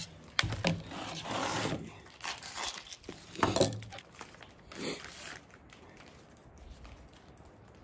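Plastic wrap on a pack of egg roll wrappers crinkling and tearing as it is opened, in several short bursts with the loudest about three and a half seconds in. It quiets down after about five seconds.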